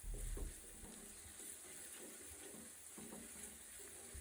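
Faint, steady sizzling of ground onion and ginger-garlic paste frying in oil on low heat in a pot, with a low bump right at the start and a few soft knocks of stirring.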